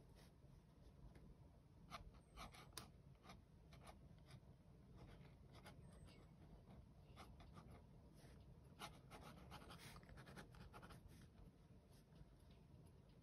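Faint scratching of a pen on paper, in short, irregular strokes as lines are sketched.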